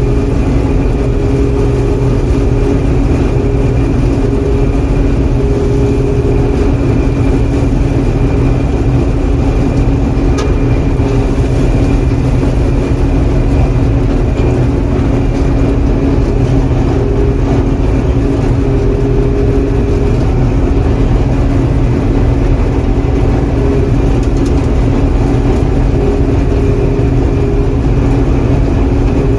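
John Deere 4400 combine running steadily while harvesting soybeans, heard from inside the cab: an even engine and threshing-machinery drone with a faint high whine.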